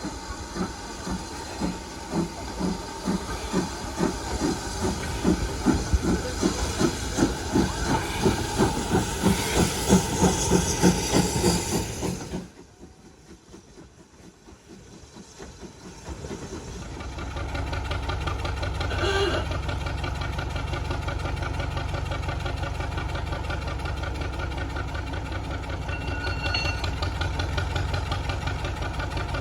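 Steam engine exhaust chuffing in a steady rhythm of about two and a half beats a second, with hissing steam, cut off suddenly about twelve seconds in. After a few quiet seconds, a steady low engine hum fades in and carries on.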